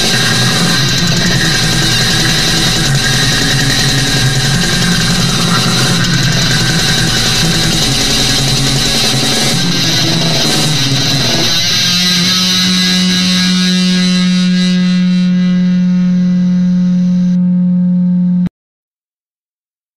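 Heavy metal music with distorted guitars; about twelve seconds in, the band lands on a final chord that is held and rings on for several seconds, then cuts off abruptly into silence.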